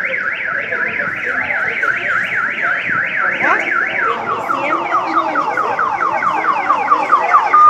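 Car alarm siren sounding loudly: a tone sweeping rapidly up and down about four times a second, then switching about halfway through to faster repeated falling sweeps as the alarm cycles to its next pattern.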